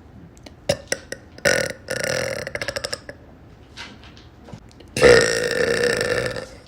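A woman burping twice. The first is a long burp about a second and a half in that ends in a quick rattle; the second, about five seconds in, is louder and longer. A few short clicks come just before the first.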